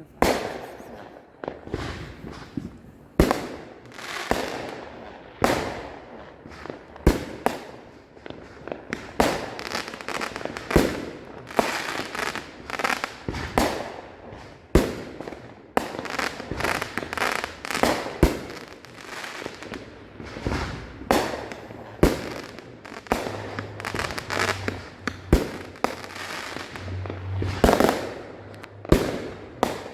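Consumer fireworks set off across the neighbourhood: a dense, steady run of sharp bangs, several every few seconds, each trailing off in echo.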